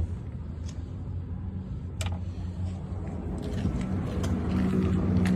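Pickup truck engine running steadily, growing a little louder in the second half, with a single sharp click about two seconds in.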